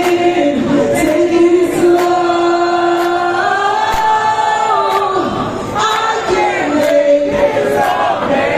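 Live pop song: a woman singing long held notes into a microphone over an amplified backing track with a steady beat.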